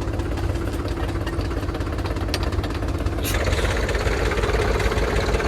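JCB 3DX backhoe loader's diesel engine running steadily, then revving up and growing louder about three seconds in.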